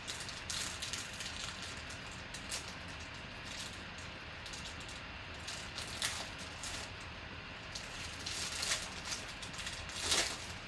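Rustling and crinkling of trading-card packaging and cards being handled, in short scattered bursts, the loudest crinkle near the end.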